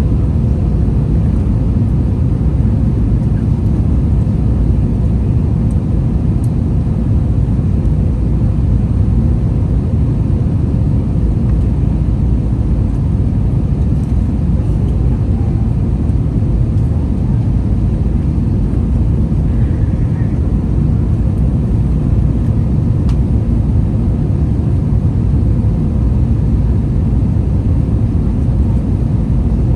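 Steady low roar inside the cabin of an Airbus A321-200 in flight: engine drone from its IAE V2500 engines and airflow noise, unchanging throughout.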